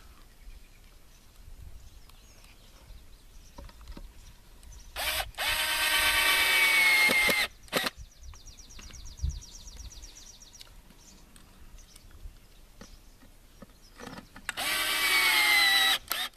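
Power drill run in two bursts of two to three seconds each, its motor whine sagging in pitch under load as it drives drywall screws into the wooden anvil base. A brief fast clicking comes between the bursts.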